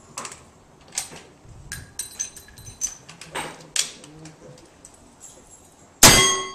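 A lever-action rifle being handled and worked, with scattered small metallic clicks and clacks, then a single loud rifle shot about six seconds in. Two steady ringing tones follow the shot and fade: a struck steel target ringing.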